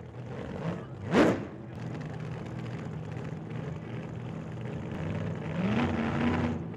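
A motor vehicle engine running, with a sharp rising rev about a second in and a smaller rise in pitch near the end.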